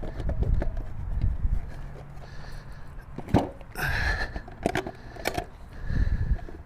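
A motorcycle side cover being fitted by hand: a few sharp clicks and knocks, with a short scrape, as it is pushed into place on the frame, over a low rumble.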